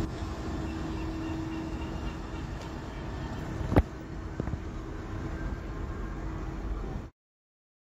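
Electric locomotive running along the station track and moving away: a steady rumbling hum with a faint steady tone, slowly fading. A sharp click comes about four seconds in, and the sound cuts out abruptly near the end.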